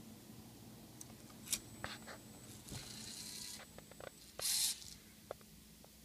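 LEGO Mindstorms Rubik's Cube robot at work: scattered plastic clicks and two short scraping rasps, the second and louder one about four and a half seconds in, over a low steady hum.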